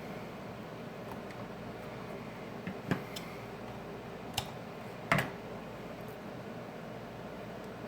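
A few light clicks and taps of small tools and parts being handled on a workbench during a smartphone screen repair, over a steady background hiss. The clicks cluster from about three to five seconds in, the last one the loudest.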